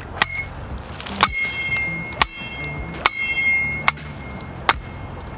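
Stainless steel folding camping shovel chopping into a dead tree trunk: six strikes about a second apart, the blade ringing with a high metallic tone after several of them.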